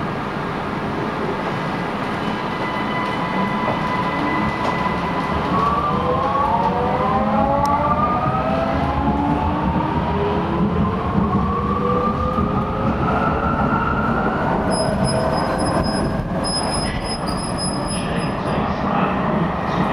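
Vienna U-Bahn Type V metro train pulling out of a station and accelerating. Its electric traction drive whines in several tones that rise in pitch together from about five seconds in, over a steady rumble of wheels on the track.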